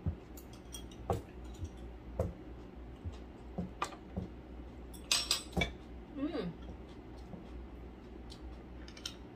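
Scattered light clicks and taps of chopsticks and a spoon on ceramic bowls, with a quick cluster of clicks about five seconds in. A brief falling vocal sound comes just after six seconds.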